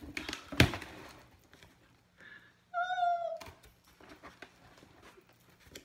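Scissors cutting and tearing through packing tape on a cardboard shipping box, with a sharp snip about half a second in, then cardboard flaps being pulled open. Around three seconds in, a single short meow, slightly falling at the end.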